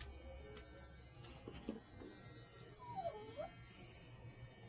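Wahl Bravura Lithium cordless pet clipper running with a faint steady hum as it shaves a dog's belly. A short whine dips and rises about three seconds in.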